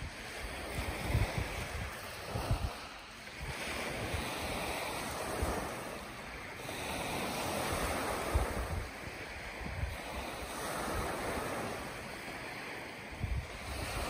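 Small waves breaking and washing up a gravel beach, the hiss of surf swelling and fading about every three seconds. Gusts of wind buffet the microphone with low rumbles.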